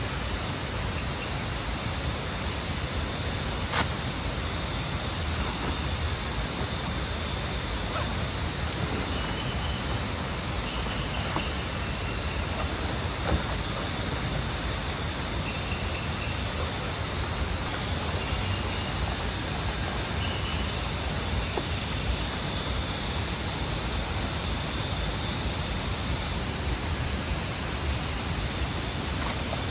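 Night insects chirping steadily over a continuous hiss, with short high calls coming and going and a couple of faint knocks.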